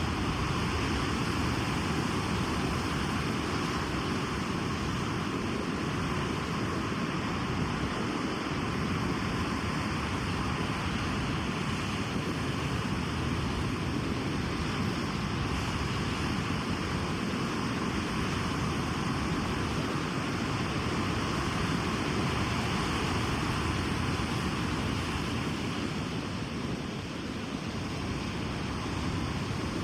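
Ocean surf washing onto a beach: a steady, continuous rushing of waves with no distinct breaks.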